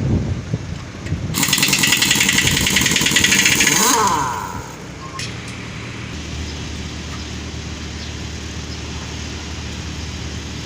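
A pneumatic impact wrench, used in a truck tyre change, hammers for about two and a half seconds, starting a little over a second in: a loud rapid rattle with a hiss that winds up and then down. Under it a steady low engine or compressor hum runs on.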